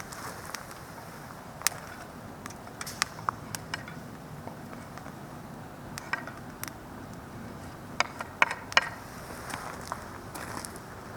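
Wood campfire crackling: scattered, irregular sharp pops over a low steady hiss, with a cluster of louder pops about eight seconds in.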